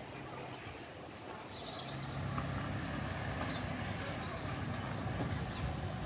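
A motor vehicle engine running, a steady low hum that grows louder after about a second and a half.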